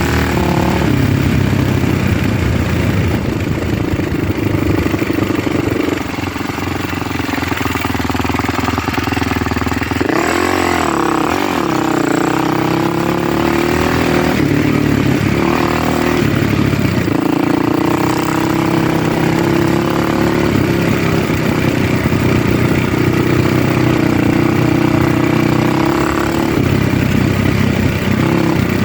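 Small vehicle engine running steadily, its pitch rising and falling a few times about a third and again about halfway through as the revs change.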